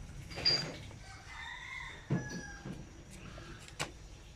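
A rooster crowing, one call of a little under a second about a second in, followed by a shorter call. A sharp click near the end from a metal spoon scraping the inside of a sprouted toddy palm seed's shell.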